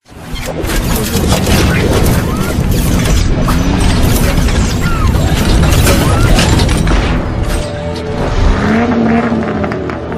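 Loud logo-animation soundtrack: music with booming hits and a sports-car engine revving as a sound effect. It starts suddenly and eases off near the end.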